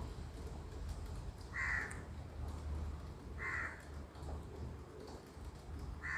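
A crow cawing: three short caws about two seconds apart, over a low steady hum.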